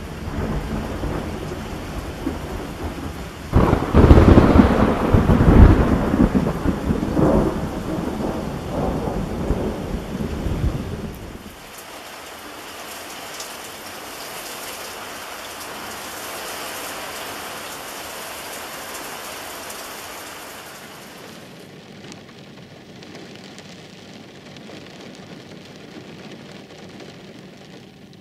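Thunder during a severe storm: a loud, deep rumble swells about three seconds in and lasts about eight seconds over falling rain. Then a steady hiss of heavy rain, softer toward the end.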